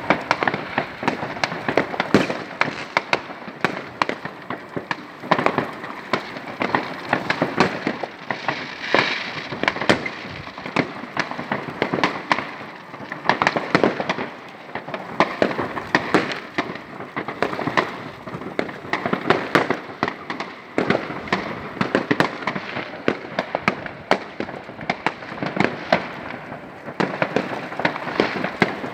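New Year's Eve fireworks and firecrackers going off continuously: many overlapping bangs and crackles at irregular intervals over a steady crackling haze.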